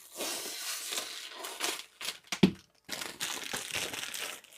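Plastic wrap crinkling and rustling as it is pulled off a keyboard, in stretches with short pauses, with a brief knock about two and a half seconds in.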